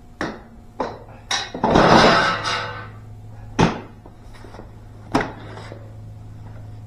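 Several sharp knocks and clicks of hard objects being handled, with a louder clattering rush about two seconds in. A low steady hum starts with the clatter and carries on.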